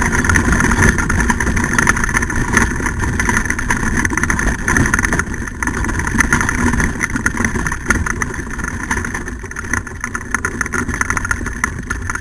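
Dryland sled-dog kart rolling fast over a rough dirt trail behind a dog team: a continuous close rattle and rumble of its wheels and frame, easing off slightly past the middle.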